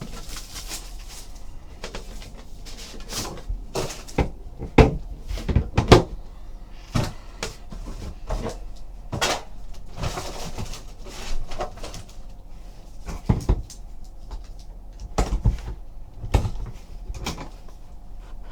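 A trading card box being opened and its contents handled on a table: scattered knocks, taps and clicks of cardboard and packaging, the loudest about five and six seconds in.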